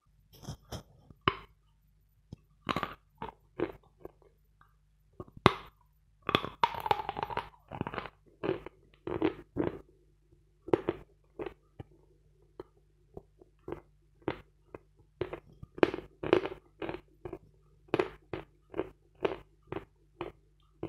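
Close-up crunching of a block of 'Vatutin' chalk being bitten and chewed: a sharp bite about five seconds in, then a run of crisp crunches about two a second.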